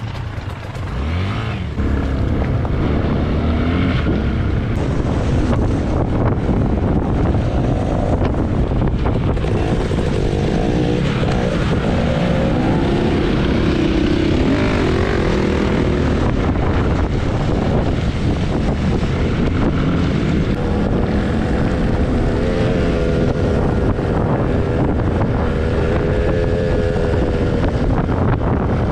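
Enduro dirt bike engine pulling away about two seconds in, then running under load on a rocky trail, its pitch rising and falling as the throttle is worked. Wind rushes on the microphone.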